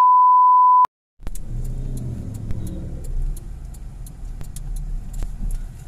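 A loud, steady 1 kHz test tone that cuts off just under a second in. After a short silence comes a car's engine running, heard from inside the cabin, with a few faint clicks.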